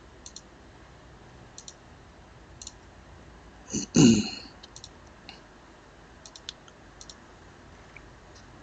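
Computer mouse clicks, single and in quick pairs, spread a second or so apart as menu items are picked. About four seconds in comes a short, louder voice sound that falls in pitch.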